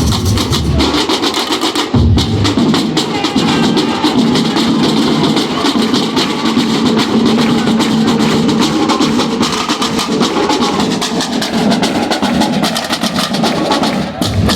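Batucada percussion ensemble playing a fast, dense samba rhythm on drums, with rapid strokes on the drumheads and a steady low drum pulse.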